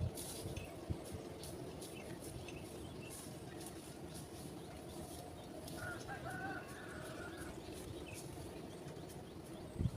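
A rooster crows once in the background about six seconds in, one call lasting under two seconds, over steady outdoor background noise with faint scattered clicks.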